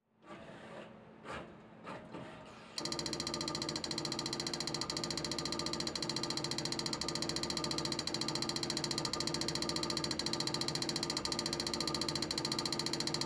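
Automated jetting dispenser, a Camalot NanoShot pump, firing dots onto a circuit board in fast succession: a steady, rapid mechanical buzz that starts abruptly about three seconds in, after a few short, quieter machine sounds.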